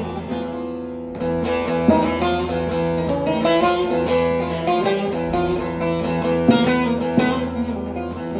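Divan bağlama with a walnut bowl being played: a plucked melody over steadily ringing drone strings, with a few sharp strummed strokes.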